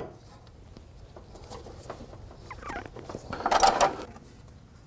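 A hand ratchet clicks in short runs as the front control arm's body-mount bolts are snugged down, with light metallic clinks of the socket on the bolt. The loudest, fastest run of clicking comes about three and a half seconds in.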